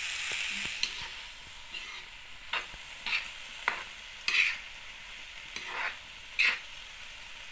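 Greens and soaked chana dal sizzling in a hot oiled pan while a spatula stirs them, with a series of short scraping strokes against the pan over a steady frying hiss.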